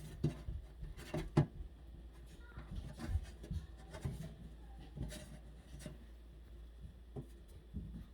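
Hands pressing a freshly inserted disposal part into place and wiping away excess glue: scattered rubbing with light clicks and knocks, a couple of sharper knocks about a second in.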